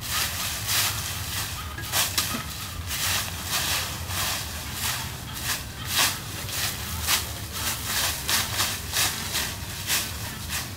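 Twig broom sweeping dry leaves on bare dirt ground: repeated scratchy strokes, about two a second, over a steady low rumble.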